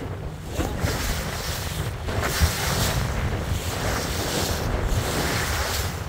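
Wind buffeting the microphone over the rush and slap of choppy water against a small boat's hull as it runs through the waves.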